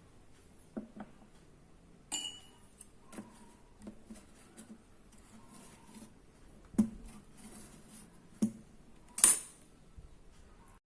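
Light knocks, taps and clinks of small hard objects being handled and set down, one clink about two seconds in ringing briefly, with a short scraping rustle a little after nine seconds.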